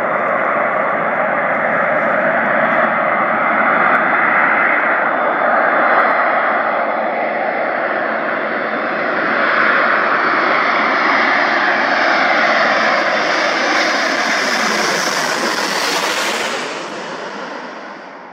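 Fixed-wing aircraft engines running loud as the plane passes close. The noise grows sharper and higher toward the end, then drops away sharply.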